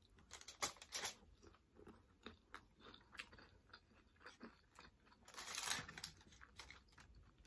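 A person chewing crunchy nacho chips close to the microphone: a faint string of small crunches and clicks, with a longer, louder crunch about five and a half seconds in.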